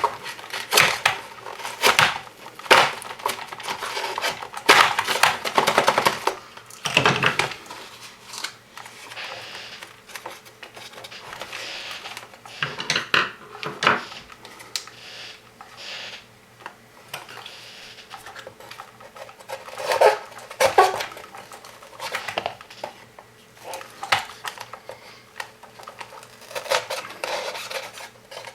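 Clicks, knocks and clatter of small hard parts being handled and fitted on a robot chassis: a quick run of knocks in the first seven seconds or so, then scattered clicks.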